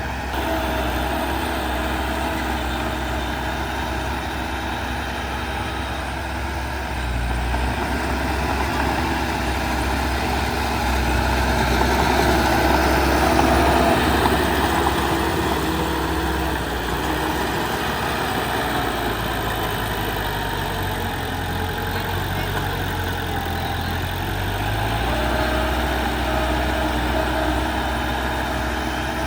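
Diesel engine of heavy earthmoving machinery running, its pitch shifting a few times and growing louder for a spell about halfway through.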